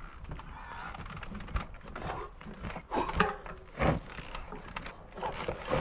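Mountain bike's knobby tyres rolling over dry fallen leaves and twigs, crackling and rustling, with irregular knocks and thumps from the bike as it passes close by, loudest about three and four seconds in.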